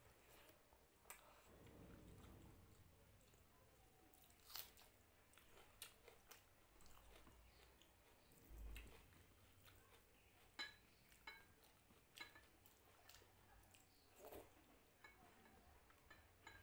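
Faint, close-miked chewing of a mouthful of dal and rice, with scattered wet mouth clicks and smacks and the soft squish of fingers mixing rice and dal on a plate.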